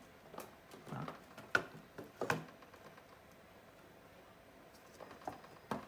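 Light clicks and knocks of plastic parts and wiring being handled as a battery pack is pushed into a plastic lamp housing. Four short knocks come in the first two and a half seconds, then a quiet stretch, then two more near the end.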